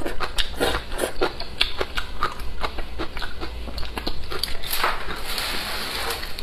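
Close-miked eating sounds: slurping and chewing soft wide wheat noodles in spicy broth, with many quick wet mouth clicks and smacks. A longer breathy sound comes about five seconds in.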